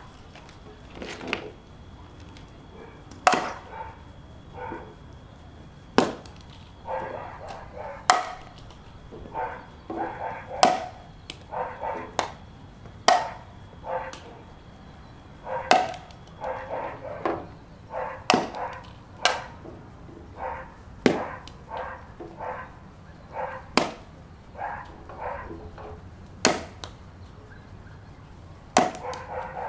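A toddler's toy golf club striking golf balls on a concrete patio: a sharp crack every two to three seconds, about a dozen in all.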